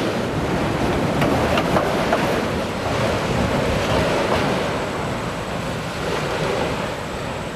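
Autorack freight cars rolling past close by: a steady rumble of steel wheels on the rails, with a few sharp clicks over the rail joints in the first couple of seconds and wind buffeting the microphone. The noise eases gradually.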